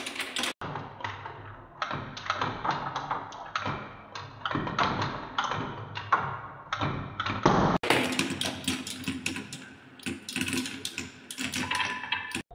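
Many marbles rolling and clattering down a wooden marble run and around its wooden spiral bowls, a dense stream of clicks and taps. The sound drops out for an instant about half a second in and again near eight seconds.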